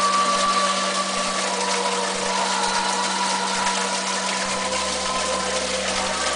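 Steady rushing noise with a constant low hum, from the small electric motors and running water of an animated nativity crèche.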